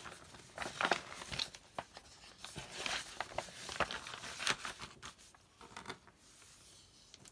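Clear plastic packaging of a cross-stitch kit crinkling and rustling as paper pattern sheets are slid into it and pressed flat, in irregular crackles that die down about five seconds in.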